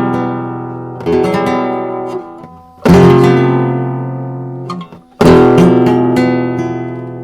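Handmade cedar and cypress flamenco blanca guitar played in strummed chords: three chords, each struck with a quick flurry of strokes about one, three and five seconds in, and left to ring and fade.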